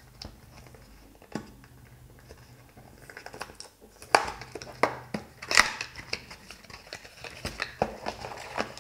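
A small retail box being opened and its packaging handled: scattered clicks and crinkling rustle, sparse at first and busier from about three seconds in, with a few sharp snaps.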